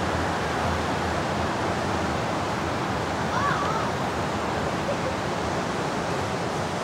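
Steady outdoor city street ambience: a constant wash of noise with a low traffic rumble. A short rising-and-falling call sounds faintly about three and a half seconds in.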